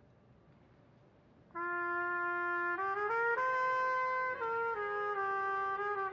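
A solo brass instrument starts about a second and a half in and plays a slow melody of long held notes, climbing a few steps and then coming back down to the note it began on.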